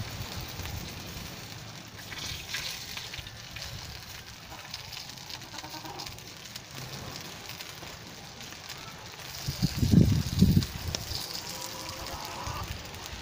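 Small wood fire crackling under a wire grill. A loud low rumble comes about ten seconds in.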